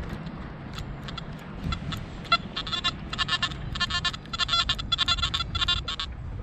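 Nokta Makro Anfibio metal detector's audio signal: broken, choppy high beeping tones stuttering in and out as the coil sweeps over a target, a really scratchy signal.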